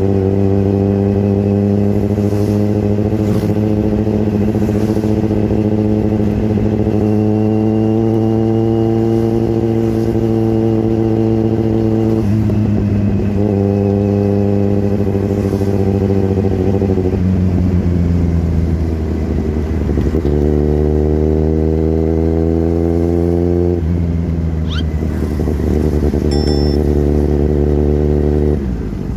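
Kawasaki Z900's inline-four engine running steadily under way. The engine note dips and picks up again about four times: around twelve seconds in, around twenty, around twenty-four, and near the end.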